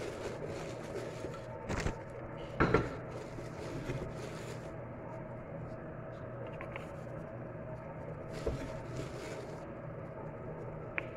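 Water boiling in an enamel kettle on a lit gas burner: a steady low rumble and hiss, with two sharp knocks about two and three seconds in and a few light ticks later.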